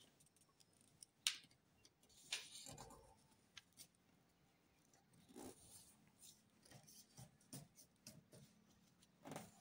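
Faint rustling and light ticks of a sheet of lined notebook paper being folded and creased by hand.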